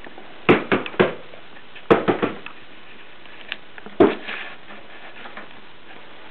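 A handful of sharp knocks and brief clatters, in clusters over the first four seconds, the loudest near the start and about four seconds in.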